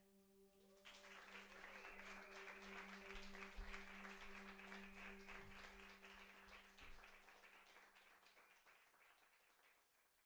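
Audience applause as the music ends: scattered clapping starts about a second in and dies away toward the end, over a low held drone note that fades out.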